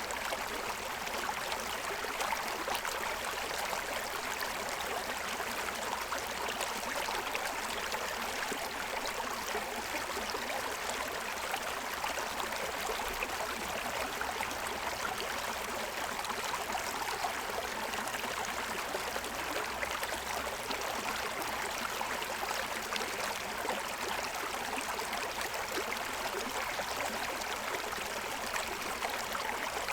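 Shallow stream running and splashing over the stones of its bed: a steady rush with fine trickling and gurgling.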